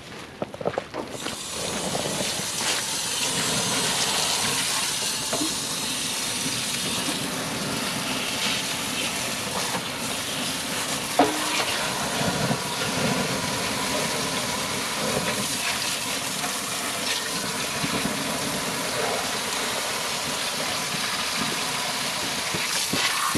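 Garden hose spraying water onto a small grass fire, a steady hiss that starts about a second in, with a single sharp knock near the middle.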